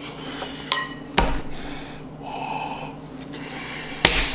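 A metal fork clinks once against a glass bowl with a short ring, then a thump. A person huffs air out around a mouthful of scalding-hot food, and a loud knock on the tabletop comes near the end.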